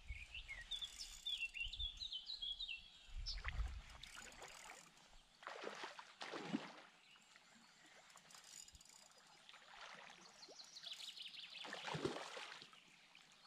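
A hooked asp splashing at the surface while it is played on the line, once about six seconds in and again, loudest, near the end. A bird sings in short chirps during the first few seconds.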